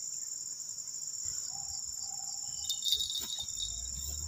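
Insects shrilling steadily in a high-pitched, unbroken chorus, with a few faint clicks about three seconds in and a low rumble near the end.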